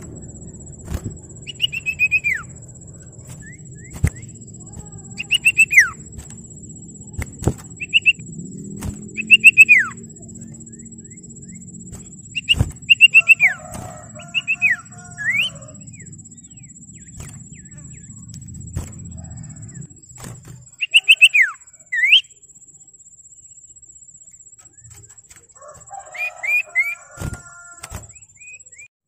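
Common iora (cipoh, 'sirtu') singing: groups of three to five quick, sharply falling whistled notes, repeated every couple of seconds with pauses, and twice a lower, harsher chatter. A low background rumble runs under it and stops about two-thirds of the way through, and a thin steady high tone sits behind it all.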